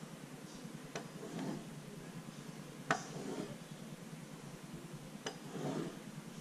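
A hand-held drawing tool clicks down onto a sheet of paper and scratches across it in short strokes, three times about two seconds apart.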